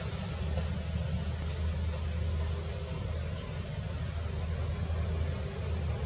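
Steady low rumble with an even hiss over it, unchanged throughout; no distinct bird call stands out.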